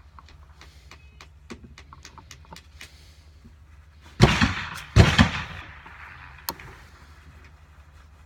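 Two loud gunshots about a second apart, echoing in an indoor range, with light metallic clicks of the revolver being handled before them and one sharp click after.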